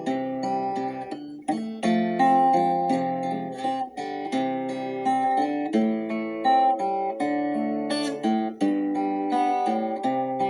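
Instrumental music: an acoustic guitar plucking soft chords and melody notes.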